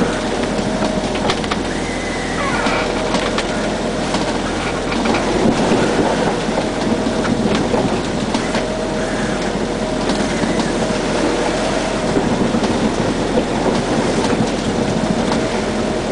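Wind and rushing sea noise aboard a sailing yacht under way in rough water. Over it, the electric drive of a wheel autopilot whines on and off several times as it works the wheel to hold course.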